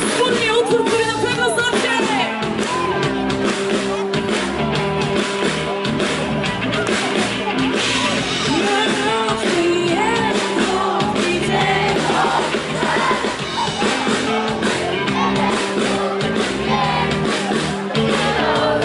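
Live rock band playing loudly, with electric guitars and a singer.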